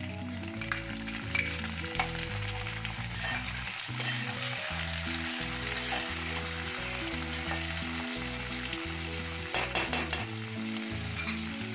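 Chopped tomatoes and onions sizzling in hot oil in a metal pot while a steel spoon stirs them, with short scrapes and clinks of the spoon against the pot.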